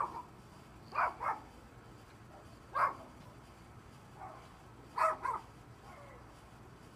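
A dog barking: short, sharp barks every second or two, some coming in quick pairs.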